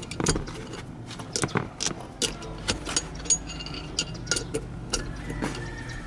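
Irregular metallic clicks and clinks of a socket and ratchet being handled around a seat belt anchor bolt, some with a short ringing.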